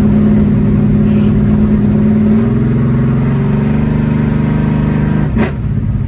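Car engine running steadily, its hum shifting slightly in pitch about two and a half seconds in, with a single sharp click near the end.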